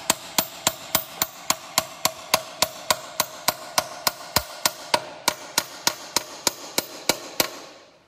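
Hammer striking a steel seal-cutter wedged into the oil pan joint of a Subaru BRZ, a steady run of sharp ringing metal taps, about three a second, that stops shortly before the end. The blows drive the blade along the seam to cut the gasket sealant so the oil pan can come off.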